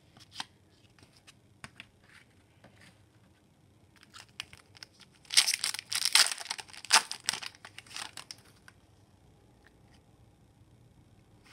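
Foil wrapper of an Upper Deck hockey card pack being torn open and crinkled: a loud burst of tearing and crinkling about halfway through, followed by a few sharp crackles. Before it, only light clicks of cards being handled.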